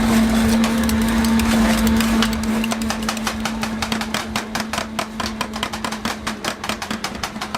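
Metal spatulas of a rolled ice cream stall chopping and tapping on the freezing cold plate, in quick rhythmic clacks that grow denser from a few seconds in. A steady hum runs underneath and fades out.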